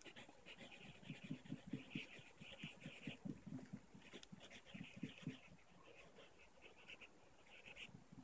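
Pencil scratching on paper in quick, short strokes, faint throughout, heavier for the first five seconds or so and lighter toward the end.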